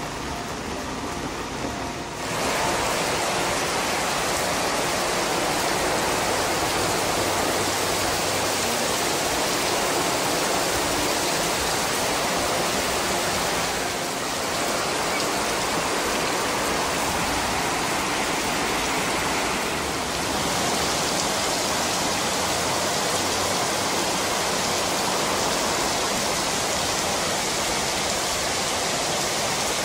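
Heavy rain pouring down onto a paved street and pavement, a dense, steady hiss. It grows suddenly louder about two seconds in.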